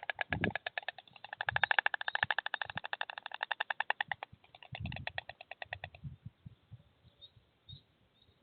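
White storks clattering their bills at the nest: a fast, even rattle of wooden-sounding clicks, about a dozen a second. It breaks briefly after about four seconds, resumes, and stops about six seconds in.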